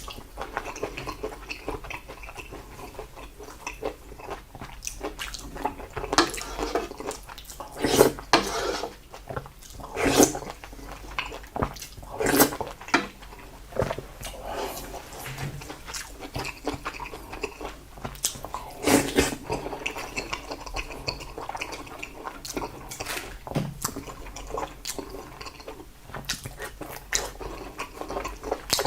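Close-miked wet chewing and mouth sounds of someone eating salted seafood and rice, with irregular sharp clicks and smacks.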